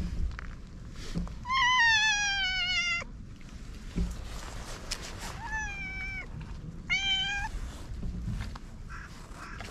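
Black-and-white stray cat meowing three times while being stroked: first one long meow that falls steadily in pitch, then two shorter meows a few seconds later.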